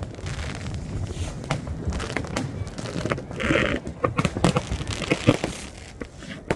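Fireworks going off: many scattered bangs and crackling pops over a low rumble, with a brief hiss about halfway through.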